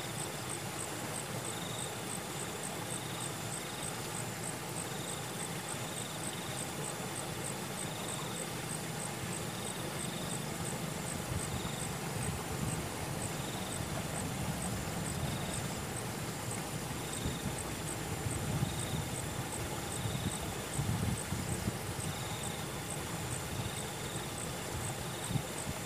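Insects chirping: one ticking regularly about twice a second, another chirping on and off, over a steady outdoor hiss, with some low rustling in the second half.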